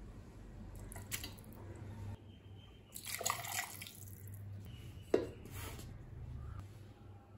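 Cooked spinach and onion with their cooking water poured into a stainless steel mixer-grinder jar, splashing and dripping about three seconds in. A sharp knock follows a couple of seconds later as the lid is set on the jar and pressed down.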